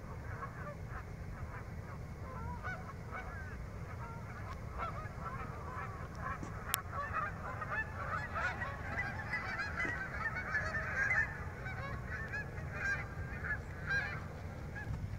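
A large flock of Canada geese honking, many calls overlapping without pause and growing busier about halfway through.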